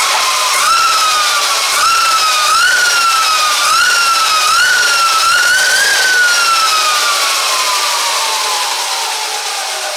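Electric motor whine from a Lightning Rods Big Block mid-drive motor, driven by an ASI BAC2000 controller, spinning the bike's rear wheel through the chain. The pitch jumps up and sags back about six times as the throttle is blipped, then falls steadily over the last few seconds as the motor spins down.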